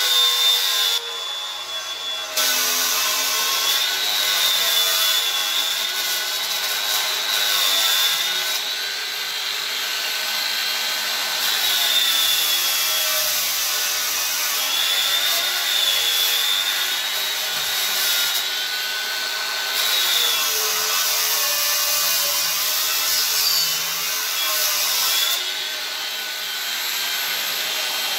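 Makita angle grinder with a disc cutting into ash wood: a steady high motor whine whose pitch sags and recovers as the disc bites and is eased off, over the harsh noise of wood being ground away. It eases briefly about a second in.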